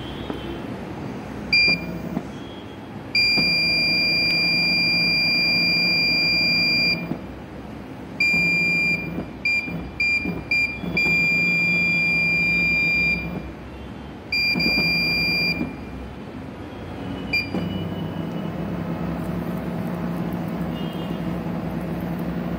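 NEMA 34 stepper motor running in repeated bursts as it is started and stopped from its controls: a steady high-pitched whine over a low hum, with one long run of about four seconds, several quick short starts, then runs of one to two seconds. A lower steady hum carries on through the last few seconds.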